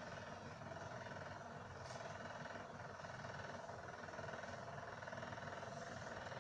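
Faint, steady background hum with no distinct events.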